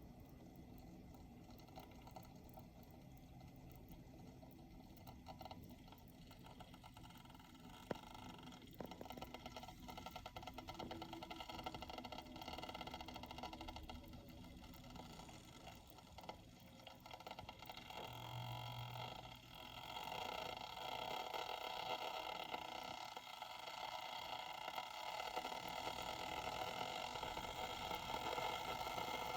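Water heating in a Bodum gooseneck stainless steel electric kettle, a faint hiss that grows gradually louder as it warms toward the boil, with a few small ticks.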